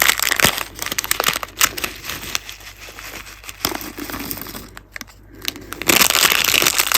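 Bag of beads crinkling and rustling as it is handled and opened, with dense crackling, quieting briefly and picking up again near the end.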